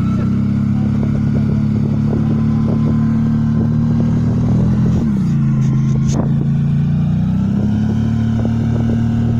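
ATV engine running close by, steady. About five seconds in, its pitch drops, then it rises back up around seven and a half seconds.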